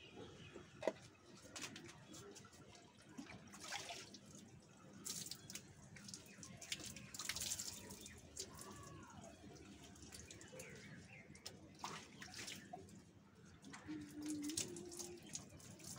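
Water poured from a plastic mug over long hair, splashing onto a concrete floor in several separate pours.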